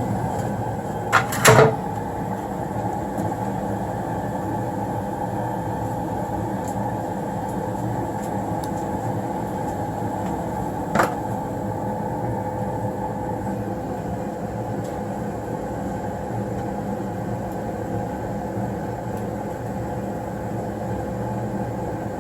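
Newly installed 90% gas furnace running during its first firing, its blower moving air with a steady hum. A couple of sharp clicks about a second and a half in and one more about halfway through.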